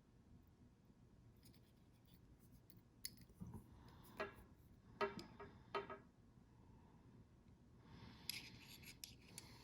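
Faint handling noise of metal bolt-action pens: a few light clicks and taps between about three and six seconds in, then soft rubbing near the end.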